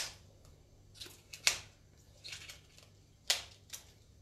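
Small kitchen knife cutting through the tough outer leaves of an old, hard raw artichoke: three sharp, crisp snaps about a second and a half apart, with softer cracks and rustling between.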